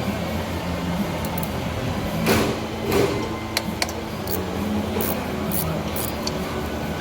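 Hand tools clinking and scraping against metal as a bolt on the AC compressor's mounting is worked loose with a quarter-inch ratchet, a handful of short sharp clinks over a steady background hum.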